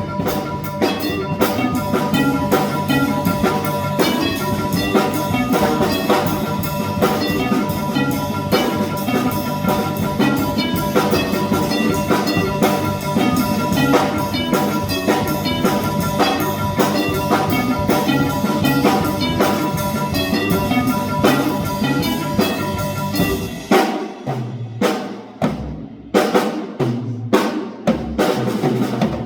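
Drum kit played solo in a busy, dense passage, with sustained ringing tones over the hits. About 24 seconds in it thins out to separate, spaced drum strokes.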